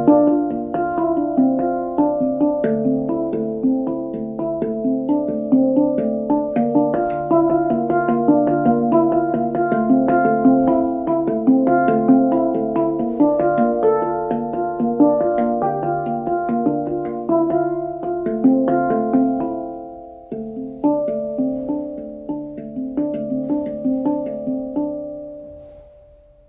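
Nitride-steel D Kurd handpan with nine notes, played with the fingertips in a quick, flowing pattern of ringing notes. About twenty seconds in it pauses briefly, then a few sparser notes follow and the last ones ring out and fade as the piece ends.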